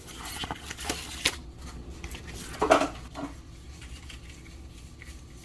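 A replacement refrigerator water filter and its packaging being handled: scattered light clicks, taps and rustles, with one louder rough handling sound about halfway through.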